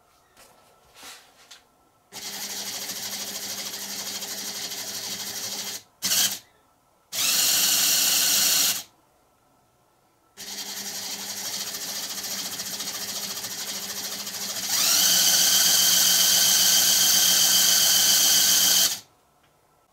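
LEGO Technic electric motor driving a propeller through plastic gears, whirring in runs of a few seconds with short stops between them. Some runs are quieter and some louder and higher. The last run rises in pitch as it spins up, about fifteen seconds in.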